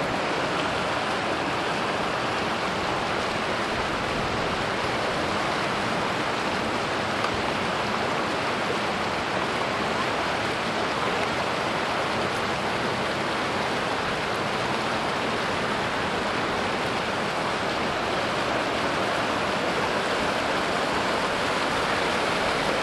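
Rushing river water tumbling over rocks, a steady, unbroken hiss of whitewater.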